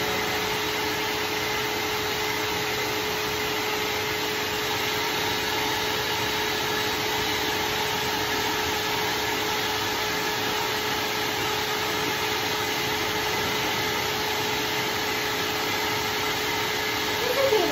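Steady whirring rush of an electric blower motor running without a break, with a constant hum under the airflow noise.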